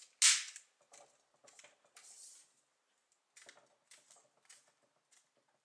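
Plastic screen-bezel clips of a Lenovo ideapad 320 laptop lid snapping loose as the bezel is pried off: one loud sharp snap about a quarter second in, then a string of faint clicks and creaks of the plastic frame.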